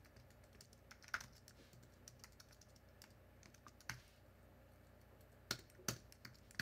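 Faint typing on a computer keyboard: scattered keystrokes, with a few sharper clicks standing out.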